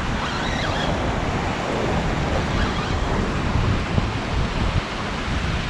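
Steady rush of turbulent water churning out below a spillway.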